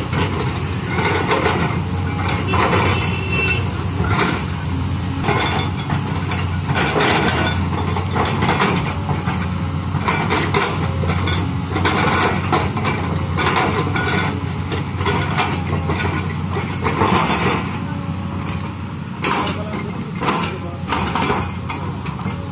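LiuGong crawler excavator's diesel engine running steadily under load, with repeated clanking and scraping from the bucket as it digs soil and tree roots.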